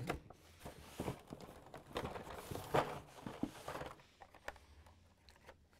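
Hot Wheels blister-carded cars rustling and scraping against a corrugated cardboard case as a stack is pulled out, with irregular light clicks and taps, fading to a few faint ticks after about four seconds.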